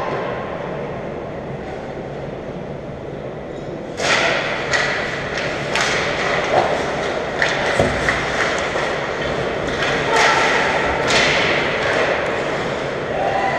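Ice hockey play in an echoing rink: skate blades scraping the ice, with sticks and puck clacking and thuds off the boards. It picks up suddenly about four seconds in, after a quieter lull.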